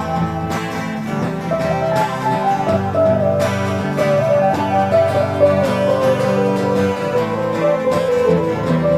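Instrumental background music: a plucked guitar carrying a melody that drifts slowly downward over steady low notes.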